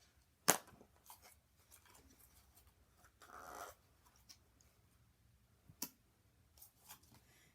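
Small handling noises from working with a plastic slime container: a sharp click about half a second in, a short scraping rustle a little after three seconds, and another click near six seconds.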